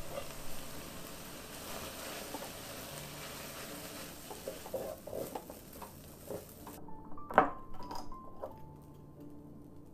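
A wooden spatula stirs and scrapes cold cooked rice around a wok over a hiss of frying, with scattered clatters against the pan. About seven seconds in the hiss cuts off suddenly, and a sharp click and a few knocks follow.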